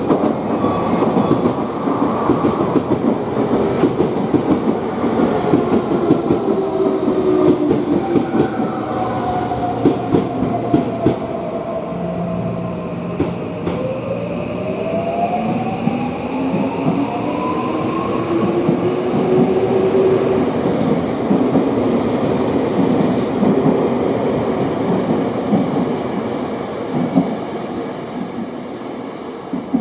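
Electric commuter train on the Tokyu Meguro Line, its wheels clattering over the rails. The whine of its traction motors falls in pitch, then rises again about halfway through, before the sound fades toward the end.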